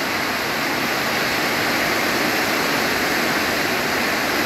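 Heavy rain pouring down steadily, a dense, even hiss with no let-up, heard from inside the house during a storm downpour.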